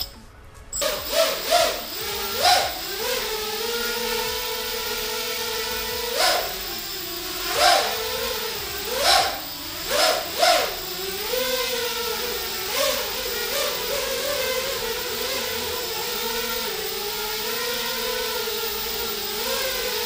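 Goby 180 racing quadcopter's four 2204 2300KV brushless motors turning 4045 bullnose props, whining in flight. The whine starts about a second in; during the first half several quick throttle punches push its pitch up sharply, and then it holds a fairly steady hovering tone that wavers slightly.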